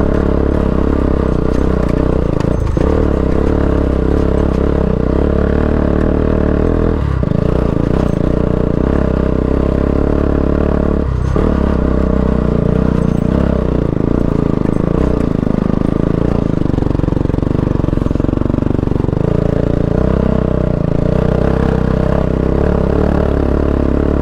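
Single-cylinder engine of a Bajaj Pulsar AS200 motorcycle pulling in a low gear, its pitch rising and falling with the throttle. The sound dips briefly three times, about three, seven and eleven seconds in.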